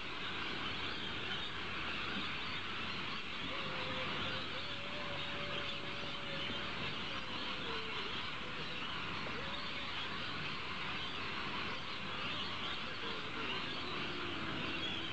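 A dense, continuous chorus of many birds chattering and squawking together, at an even level throughout, with a faint wavering lower call running through it from about four seconds in.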